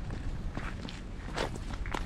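Footsteps of a hiker walking: several separate footfalls about every half second to second, over a steady low rumble.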